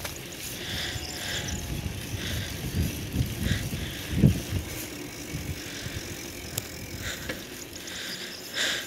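Bicycle being ridden on an asphalt road: steady tyre and wind rumble with small rattles from the bike, and one louder bump about four seconds in.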